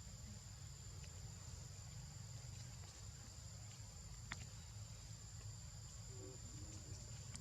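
Steady, high-pitched drone of insects, faint over a low background rumble, with a single sharp click about four seconds in.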